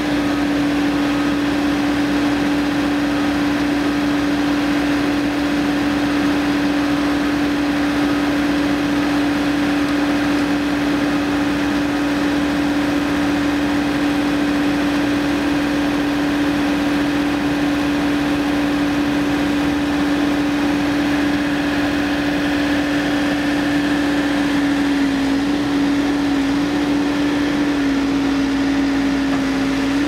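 Backhoe loader's diesel engine running steadily at a constant speed, with an even, unchanging hum.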